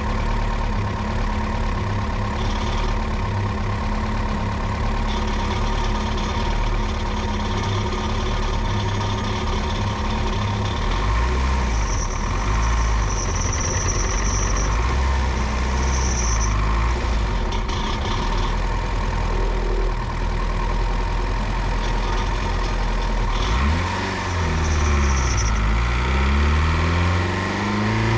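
Turbocharged Honda B16 four-cylinder engine with a Garrett GTX3582 turbo running steadily at low revs, then revving up, dropping back and rising again in the last few seconds.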